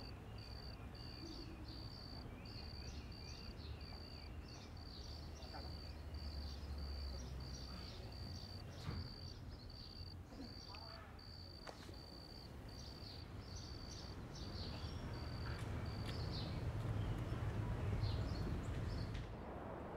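A cricket chirps in a steady, high-pitched pulse about every two-thirds of a second, stopping about four-fifths of the way through. Scattered bird chirps and a low rumble lie underneath, and the rumble swells near the end.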